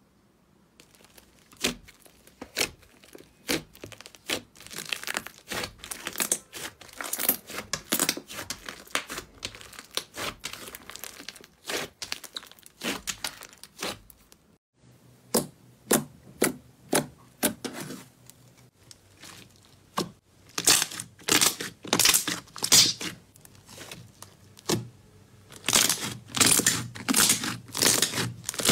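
Hands squeezing and poking soft butter slime, giving a steady run of sticky clicks, crackles and pops. Near the end the pops come thicker and louder.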